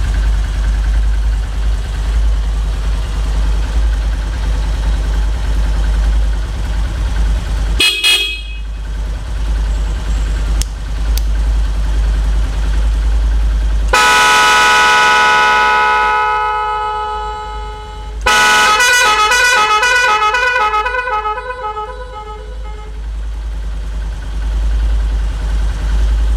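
Twin aftermarket horns on a Honda New Mega Pro motorcycle, sounded over its idling single-cylinder engine: a brief beep about eight seconds in, a long loud multi-tone blast near the middle that fades away over a few seconds, then a run of rapid pulsing beeps lasting about five seconds.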